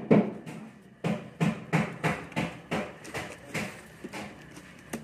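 Hammering: regular knocks, about three blows a second. They break off briefly near the start, resume about a second in and grow fainter towards the end.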